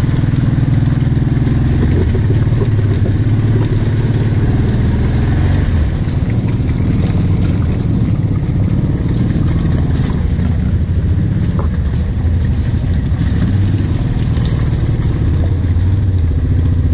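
Kawasaki KVF 750 Brute Force ATV's V-twin engine running steadily at low trail speed, heard from on board, its pitch shifting slightly with the throttle.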